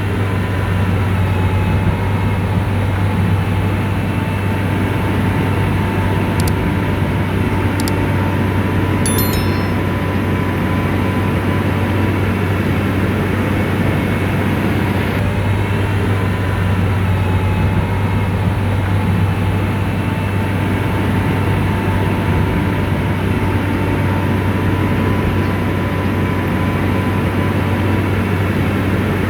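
Diesel engine of an SDLG motor grader running steadily: a constant low drone with a faint high whine on top.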